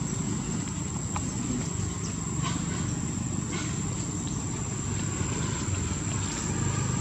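Outdoor background noise: a steady low rumble under a thin, continuous high whine of insects, with a few faint clicks.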